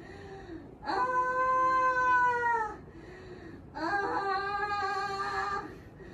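A woman in labour moaning with the pain: two long, held "aah" cries of about two seconds each, about a second in and again about four seconds in, with quiet breaths between.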